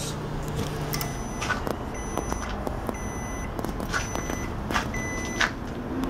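Microwave oven running with its casing off: its steady hum stops about a second in with a few clicks as the one-minute cooking cycle ends. The oven's end-of-cycle beeper then sounds four short beeps about a second apart.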